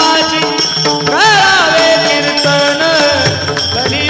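Kirtan devotional music: a melody with gliding, ornamented notes over a repeating drum beat and jingling hand cymbals.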